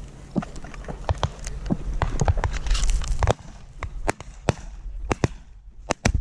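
Shotguns firing at ducks: a dozen or more sharp reports in an irregular run, some close and loud, others fainter and farther off, over a steady low rumble.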